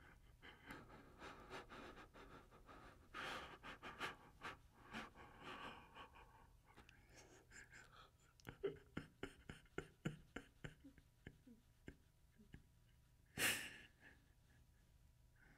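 Faint breathing and sighing, with scattered soft clicks, and one short, sharp exhale about thirteen seconds in.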